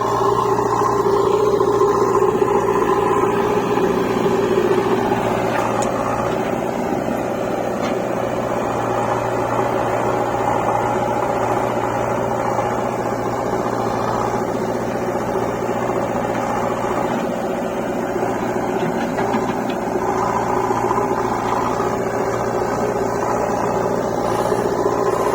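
Engine running steadily, a little louder in the first few seconds.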